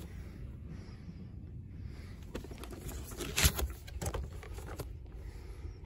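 Handling noise as a boxed toy is held and moved, with a few short knocks about three and a half and four seconds in, over a low steady background hum.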